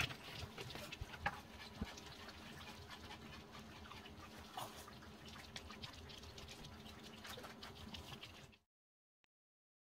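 Faint room noise with a low hum and a few light clicks and taps from two small dogs, a Bichon Frise and a Pomeranian, moving about on fabric snuffle mats and the floor. It cuts off to silence near the end.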